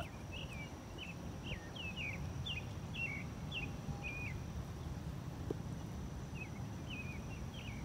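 A bird repeating short, down-bending chirps, about two a second, then pausing and giving a few more near the end, over a low steady background rumble.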